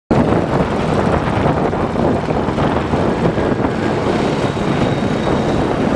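Dirt bike engines running steadily, a loud dense drone with no clear breaks.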